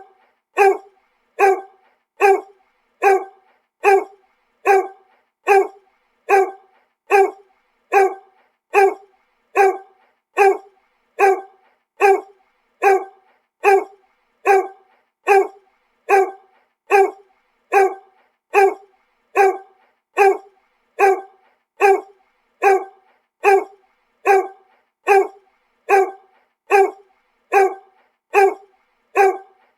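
A dog barking, one identical bark repeated at an even pace a little over once a second, like a looped sound effect.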